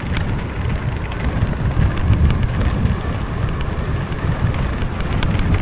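Wind buffeting the microphone over the rumble and rattle of a mountain bike riding down a rough trail, with a few sharp knocks, two of them near the end.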